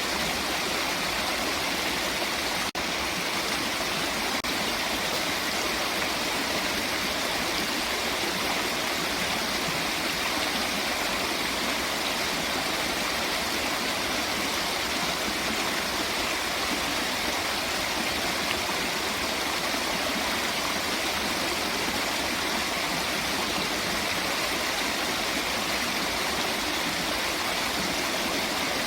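Running water rushing steadily, an even, hissy wash with little deep rumble, with one momentary dip in level about three seconds in.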